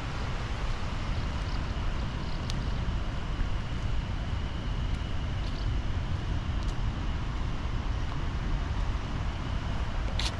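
Wind buffeting the microphone outdoors: a steady, uneven low rumble, with a few brief high chirps, the clearest near the end.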